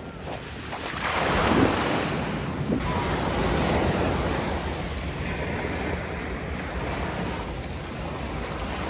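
Sea waves on the shore: a wave swells about a second in and then washes out slowly, with wind rumbling on the microphone.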